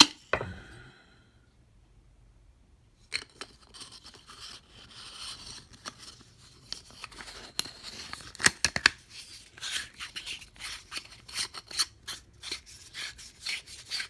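Clicks and scraping of a flashlight's AA battery carrier being handled and fitted into the flashlight: one sharp click, then after a pause, from about three seconds in, a steady run of clicks and scraping.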